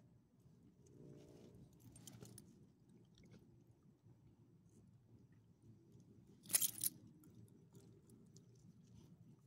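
Small dog chewing from a person's hand, faintly, with a short, loud crackling burst about six and a half seconds in.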